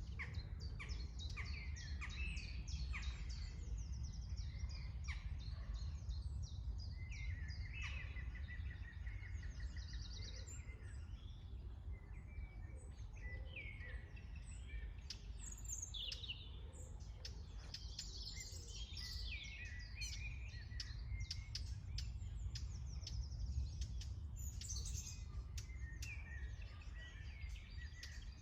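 Several songbirds singing at once, with overlapping chirps and trills throughout, over a steady low rumble.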